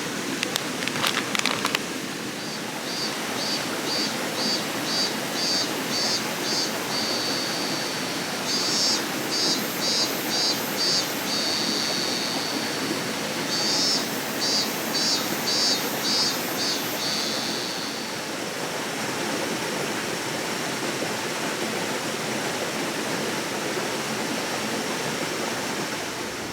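Steady rushing of a stream or small waterfall. Over it, a high-pitched pulsing call comes in three runs, about two pulses a second, each run ending in a short held note. A few clicks come near the start.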